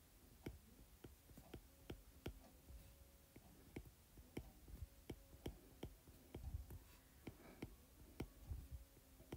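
Faint, irregular clicking and tapping of a stylus tip on a tablet screen during handwriting, two or three clicks a second.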